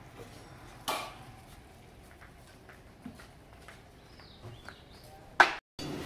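Quiet street ambience with scattered light clicks, a sharp knock about a second in, and a bird chirping briefly a little past the four-second mark. A louder sharp knock comes near the end, and the sound drops out for a moment just after it.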